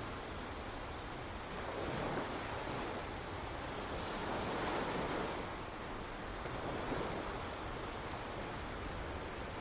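Ocean surf washing onto a shore, swelling and receding in slow waves about every two to three seconds.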